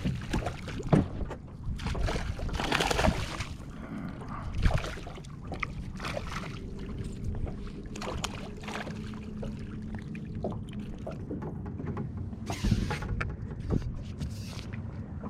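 Handling noises in a small fishing boat as a hooked crappie is reeled in and landed: irregular knocks, rustles and splashy water sounds, with a faint steady hum underneath.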